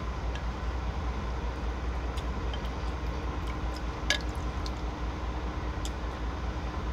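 Soup being ladled with a wooden spoon from a glass bowl into a serving bowl: soft pouring and dripping with a few light clinks, and one sharper click of the spoon on the bowl about four seconds in, over a steady low rumble.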